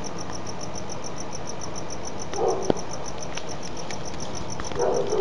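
Cricket chirping steadily, a high pulse about five times a second, over a low background hiss, with a single sharp click about two and a half seconds in.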